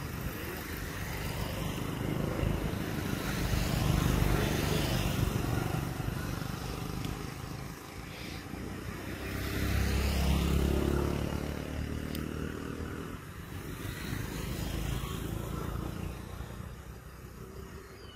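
Low engine rumble of passing motor vehicles, swelling twice: about four seconds in and again around ten seconds.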